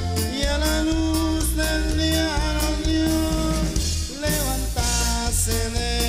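Band music with a steady beat of bass and drums, cymbal strokes and a held melody line.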